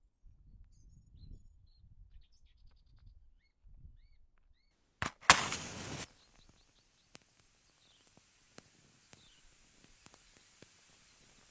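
Layered foley sound effects: soft low thuds and faint bird-like chirps, then a sharp click and a sudden loud burst about five seconds in that lasts under a second. Scattered small ticks and faint chirps follow over a low outdoor ambience.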